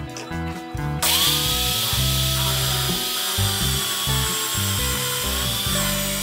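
Bench drill press with a twist bit boring into a plywood block, starting suddenly about a second in and cutting steadily. Its motor whine wavers a little as the bit bites into the wood. Background music plays underneath.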